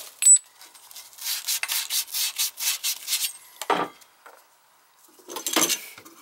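Copper pipe and tools being handled: a sharp clink just after the start, then a run of quick rubbing, scraping strokes, about five a second for two seconds, and two short clattering bursts near the end.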